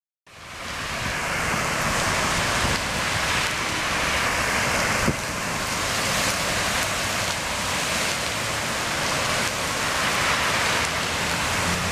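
Vehicles driving through a flooded street, their tyres throwing up spray of standing water in a steady rushing noise that swells as each one passes. A single sharp knock about five seconds in.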